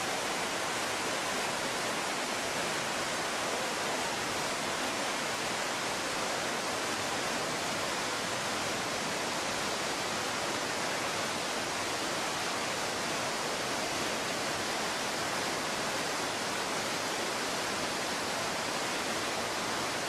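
Man-made waterfall pouring in a wide curtain from a road bridge into a canal: a steady, unbroken rush of falling water splashing onto the water surface.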